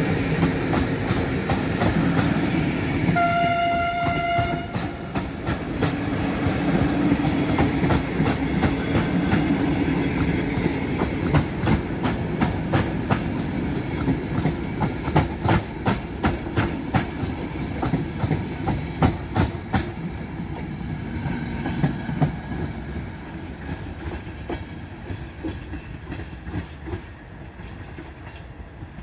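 Passenger coaches of an electric-hauled train rolling past at speed, with a loud rumble at first and then wheels clicking over rail joints in a steady rhythm. A single horn blast about three seconds in. The sound fades after about twenty seconds as the train draws away.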